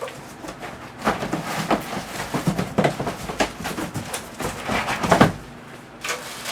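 Plastic worm-bin parts and packaging being handled and lifted out of the box: a busy run of clattering knocks and rustling.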